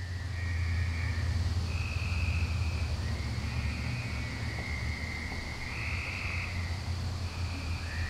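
Frogs calling in the background: overlapping trilled calls about a second long each, one after another, over a steady low hum.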